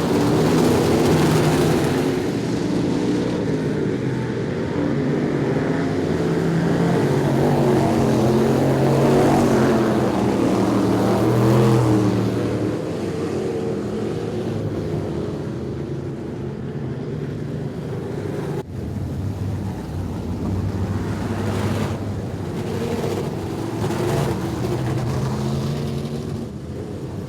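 Several street stock race cars running laps on a dirt oval, several engine notes overlapping and rising and falling in pitch as the cars pass. The engines are loudest in the first dozen seconds, then a little fainter, with a brief cut in the sound just before the last third.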